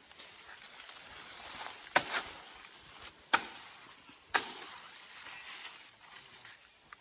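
Three sharp knocks, the first about two seconds in and the others roughly a second apart, over a faint outdoor hiss.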